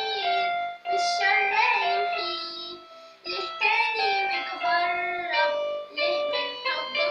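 Female voice singing an Arabic song with instrumental accompaniment, the melody held in long notes with a brief pause about three seconds in.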